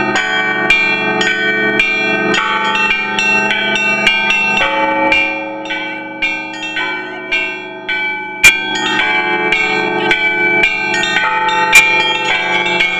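Several bronze church bells rung in the Russian manner, the ringers pulling ropes tied to the clappers, in a fast, festive peal of overlapping strikes that keep ringing on. The strokes thin out in the middle, then pick up again, with a few loud single strikes standing out in the second half.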